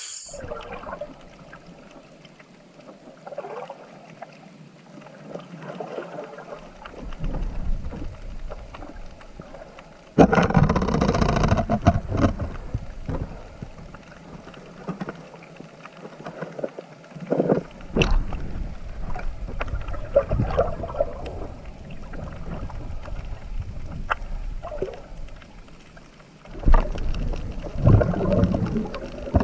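Muffled water splashing and sloshing close to the microphone, with louder surges of water noise about ten seconds in, again around eighteen seconds, and near the end.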